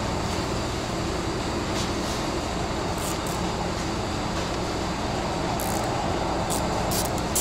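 A steady mechanical hum runs under a few sharp clicks of a hand tool on plastic engine-bay fasteners, the clicks coming about three seconds in and again near the end.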